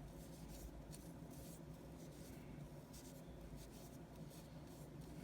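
Near silence: faint room hum with a few light, scratchy handling noises.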